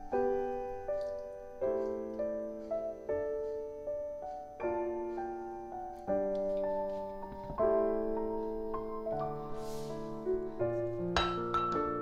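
Background piano music, a gentle melody of single notes. About ten seconds in there is a short swish, and near the end a light knock.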